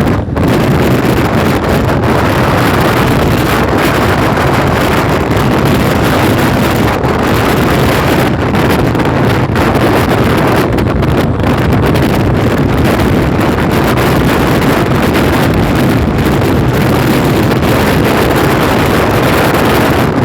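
Loud, steady wind noise buffeting the microphone over the running noise of a moving vehicle.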